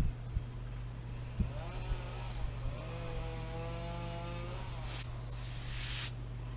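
Aerosol carburetor cleaner sprayed in one hissing burst of about a second, a little under five seconds in, forced through the clogged fuel passage of a lawn mower carburetor's bowl bolt to clear it. Before it, a steady pitched tone is heard for about three seconds.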